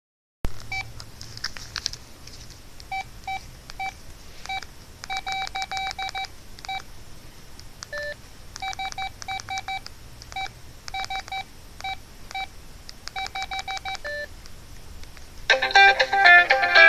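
LG Revere 3 flip phone's key beeps as its buttons are pressed: many short single tones, mostly at one pitch and often in quick runs, with a lower beep twice. Near the end a loud ringtone starts playing.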